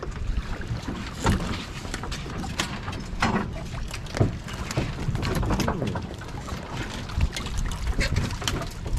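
Black rockfish being hauled aboard on a jig line: repeated knocks and slaps as the fish hit the metal rail and land on the deck. Beneath them runs the steady rumble of the boat and the wind.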